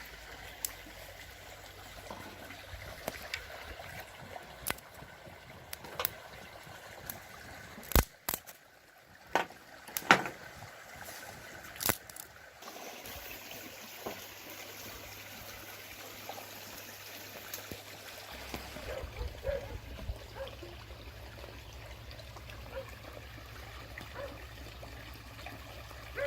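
Steady trickling water, with a few sharp clicks and knocks, several of them between about 8 and 12 seconds in.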